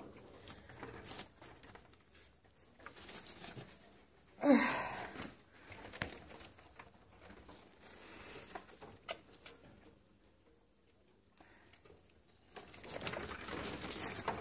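Faint rustling and light clicks from inside a pet rat cage with cardboard-flake bedding. About four and a half seconds in there is one short cooing, voice-like sound that bends in pitch. Near the end the rustling grows louder.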